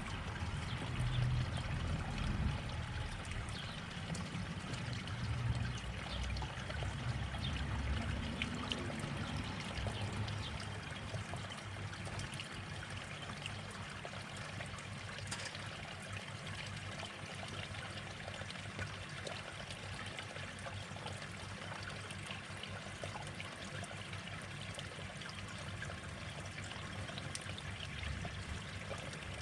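Water steadily trickling and splashing into a garden pond, with a low rumble during the first several seconds.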